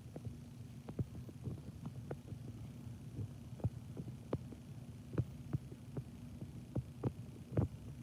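Furnace running with a low steady hum, with irregular light clicks and taps over it.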